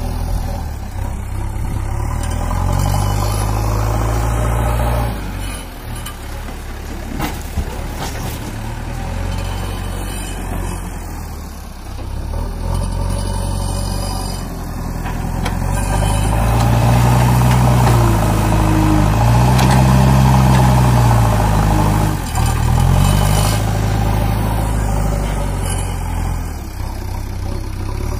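JCB 3DX backhoe loader's diesel engine running under load as it works its front bucket, revving up and down. The engine is loudest and highest-pitched for a few seconds past the middle.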